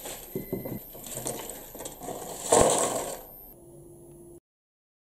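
Crisp baked pita-bread chips rustling and clattering as they are pushed off a wire rack and dropped into a plastic tub, with one louder clatter about two and a half seconds in. The sound then dies away and cuts to dead silence near the end.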